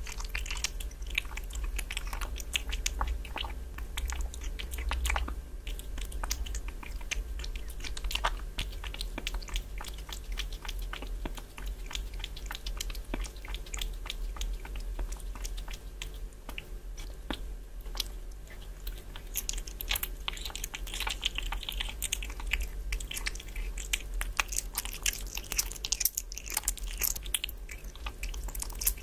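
Kitten eating chunks of raw meat from a bowl: a steady, irregular run of small biting and chewing clicks, close to the microphone.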